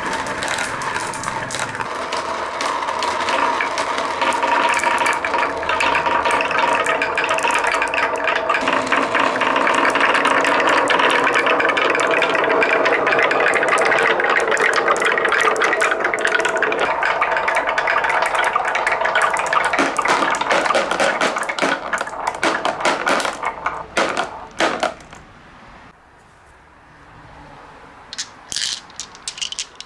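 A large batch of marbles rolling and clattering down a wooden marble run, a dense continuous rattle of clicks. It thins out to scattered clicks at around 22 to 25 seconds and goes quiet, with a few more clicks near the end.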